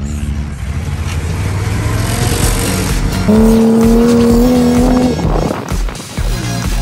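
Dune buggy engine running with wind and sand noise while driving over sand dunes. About three seconds in, background music comes in with a steady held note lasting about two seconds.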